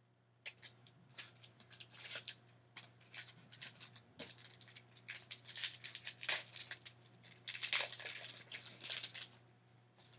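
A foil Pokémon booster pack wrapper being torn open and crinkled by hand, a string of irregular crackles and rustles that stops about a second before the end.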